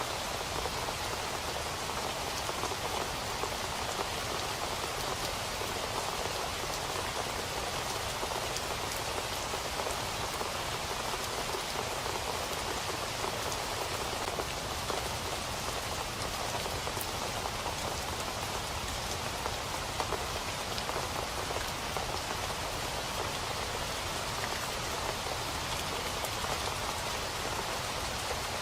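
Steady rain falling on a surface: an even hiss with scattered small drop ticks, unchanging throughout.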